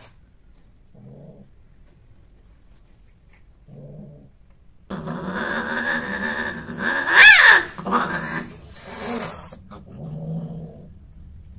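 Female cat vocalising while mated by a tom: short low growls, then a long loud yowl from about halfway in that climbs into a shrill rising-and-falling scream, the queen's cry at the end of copulation. It is followed by a few more low growls.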